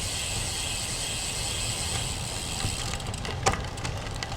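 Wind buffeting the action camera's microphone as a bicycle rides along in a strong, gusty wind, a steady low rumble mixed with tyre noise. A single click comes about three and a half seconds in.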